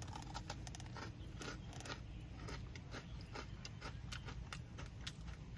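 Close-up chewing of a bite of Toffee Crunch Oreo cookie: soft, irregular crunches in quick succession over a low steady hum.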